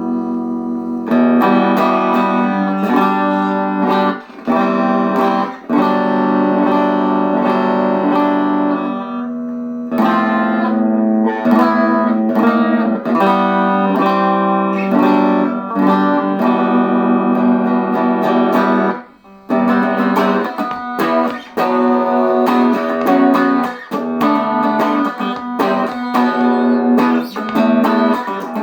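Electric guitar, a 1985 Made-in-Japan Fender Performer, played through a Peavey Valve King Royal 8 valve amp with no effects: strummed chords and picked notes, with brief breaks about four, five and a half and nineteen seconds in.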